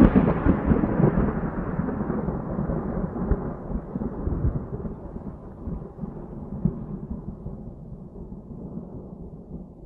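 Thunder rumbling and slowly fading away. Its hiss thins out as it dies, leaving a low rumble, with a few small swells along the way.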